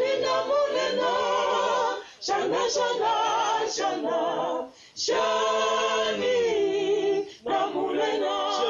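A group of voices singing unaccompanied, in phrases of about two seconds separated by short pauses for breath.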